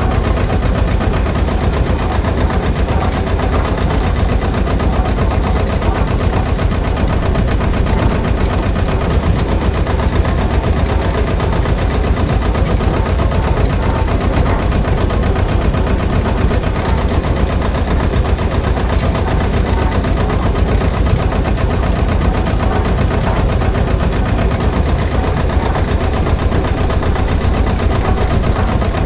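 Small single-cylinder engine running steadily at idle with a fast, even pulse.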